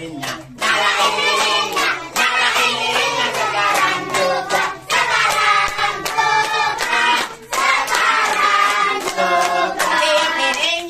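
A sung party song with music, and hands clapping along in time throughout.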